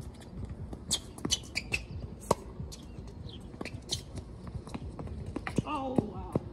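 Tennis ball struck back and forth by racquets in a rally on a hard court, sharp pops of racquet hits and ball bounces about every second or so.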